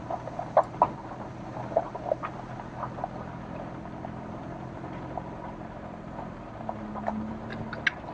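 A vehicle driving slowly over a rough dirt trail, heard from inside the cab: a steady low engine hum with frequent short clicks and knocks as it rolls over the uneven track.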